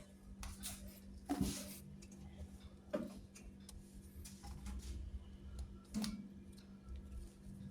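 A steady low hum with scattered light clicks and three louder knocks, about a second and a half apart at first, then one a few seconds later.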